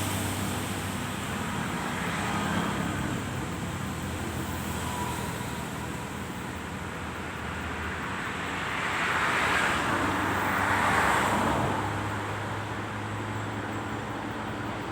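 Road traffic with a motor vehicle engine running steadily; a vehicle passes, growing louder and fading about nine to twelve seconds in.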